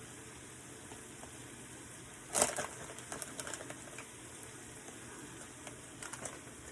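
Kitchen items clattering as someone rummages for a spice container: one sharp knock about two and a half seconds in, then a few light clicks, over a faint steady background hiss.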